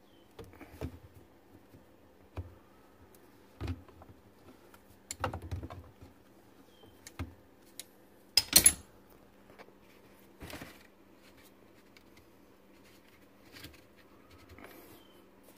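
Scattered knocks, clicks and scrapes of slip-joint pliers and hands on the plastic drain fittings of a garbage disposal's discharge elbow, with one sharp, louder clatter about eight and a half seconds in, over a faint steady hum.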